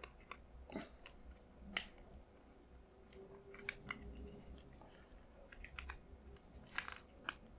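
Light, scattered clicks and taps of a Novritsch SSP-1 airsoft pistol being stripped by hand, its slide and recoil spring guide coming apart, with a quick cluster of clicks near the end.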